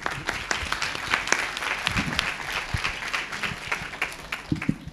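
Audience applauding: a dense patter of many hands clapping that starts at once and thins out near the end.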